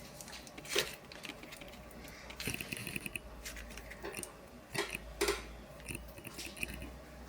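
Close-miked ASMR crunching and crackling: a few sharp crunches, about a second in and again about five seconds in, with a flurry of small crackles and taps between them.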